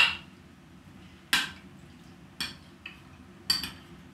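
A metal spoon clinking against the bowl and the stainless steel pot as blueberries are spooned in: about five separate sharp clinks with a short ring.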